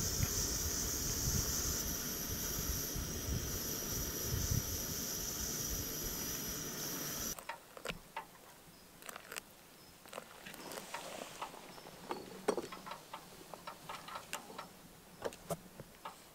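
A steady hiss with even high tones, which cuts off about seven seconds in. Then comes a quiet stretch of scattered light clicks and taps, from a wooden spoon and wooden cups being handled on a log table.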